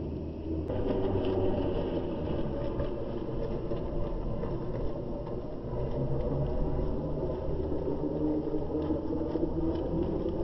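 Radio-controlled model boat running on the water, its motor giving a steady low hum with a rough, rumbling noise beneath.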